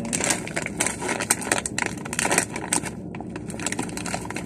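Plastic snack packet crinkling and tearing as it is pulled open by hand, in quick irregular crackles.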